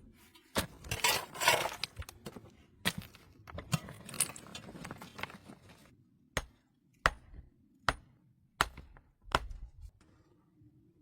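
Clattering handling sounds, then five sharp knocks at an even pace, a little under a second apart.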